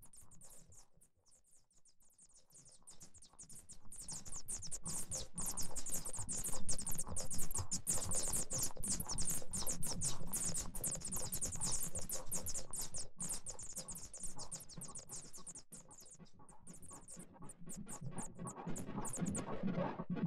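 Experimental ambient synthesizer patch from the VCV Rack software modular, processed by the Frozen Wasteland Portland Weather delay module. It is a dense stream of fast, skittering crackles and clicks that fades in from near silence over the first few seconds and thins out briefly later on. A low pitched drone swells in near the end.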